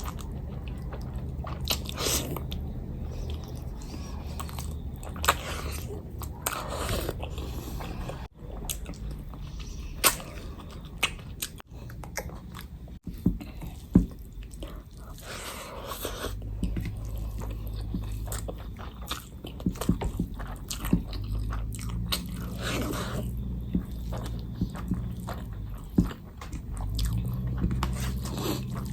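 Close-miked chewing and biting of a mouthful of food, with irregular wet mouth sounds and a few sharp clicks, over a steady low hum.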